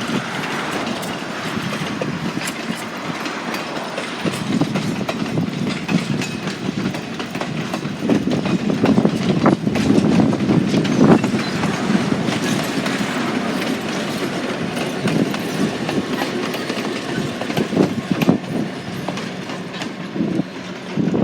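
A train led by Southern Pacific 5472 rolling past: a continuous rumble with the wheels clicking and clattering over the rail joints, swelling in loudness midway through.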